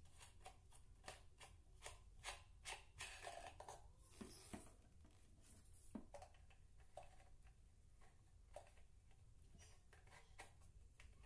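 Faint clicks, knocks and scraping of the plastic parts of a GMC 16-inch standing fan being handled, as its motor head is fitted onto the pole. The noises come thickest in the first four or five seconds, then more sparsely.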